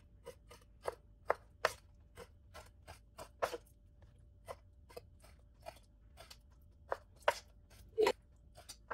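Chef's knife cutting goat liver into pieces on a wooden cutting board: a string of short taps of the blade on the board, unevenly spaced at about two a second.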